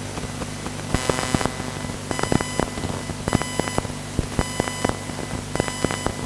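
Short electronic beeps from the race lap-timing system at irregular intervals, several close together, over a steady low hum.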